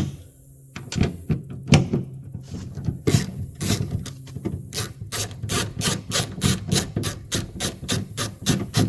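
Ratchet wrench backing an 8mm nut off the door handle's mounting stud. A few scattered clicks come first, then from about halfway a quick, even run of ratchet clicks, about four to five a second.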